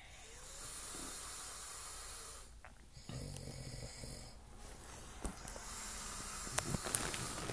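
A man snoring in his sleep: a long airy breath, a low rumbling snore about three seconds in, then another long breath with a few sharp clicks near the end.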